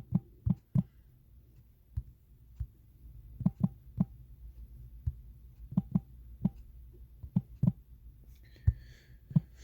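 Scattered light taps and clicks, many in quick pairs, over a faint low hum.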